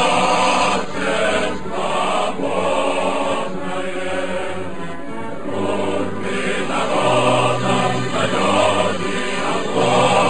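Background choir music: voices singing slow, held chords over a low bass line.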